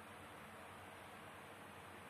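Near silence: a steady faint hiss of room tone.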